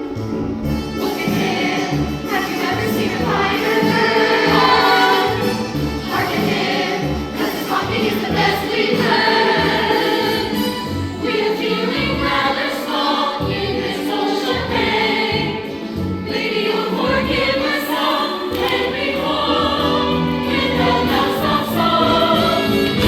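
Musical-theatre cast singing together in chorus with instrumental accompaniment.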